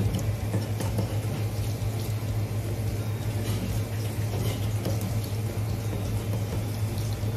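Water running steadily over a steady low hum, with a few faint clicks.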